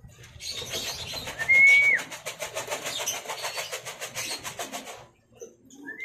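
Racing pigeons at a loft landing board: a rapid fluttering rattle that stops about five seconds in. About one and a half seconds in comes a short, high whistled bird call that drops in pitch at its end, the loudest sound here.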